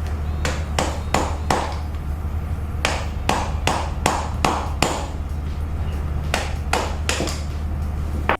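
Hammer blows ringing on steel as the old wheel bearing race, cut with a grinder and cracked, is knocked off the hub: about a dozen sharp strikes in three bursts, roughly three a second.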